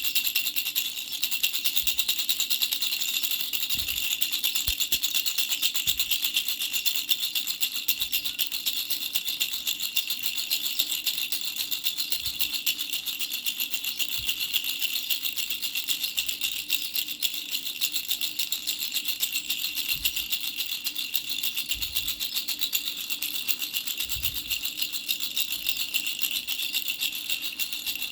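A baby's three-flower rattle toy shaken rapidly and without pause, giving a dense, even, high-pitched rattling.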